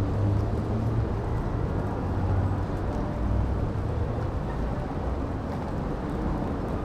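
Steady low rumble of city street ambience, mostly road traffic, with no distinct single event.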